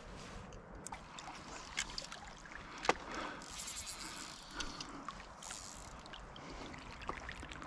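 Faint river water trickling and lapping, with a few small ticks, the sharpest about three seconds in, and two brief soft hisses.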